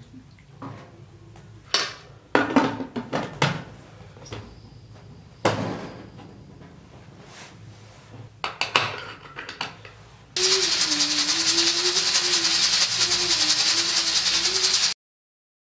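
Metal pot, ladle and lid clattering and knocking as an aluminium pressure cooker is filled and closed. About ten seconds in comes a loud, steady steam hiss from the pressure cooker venting under pressure, with a low wavering tone beneath it; it cuts off suddenly.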